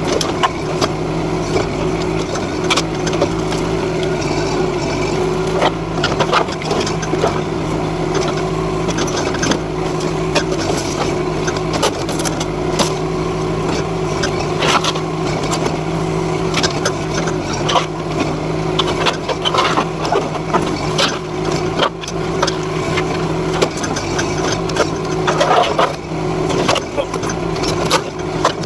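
NT18K mini excavator's engine running steadily while its arm and bucket work through a pile of corrugated sheet metal and lumber, with frequent knocks, clanks and crunches of debris throughout.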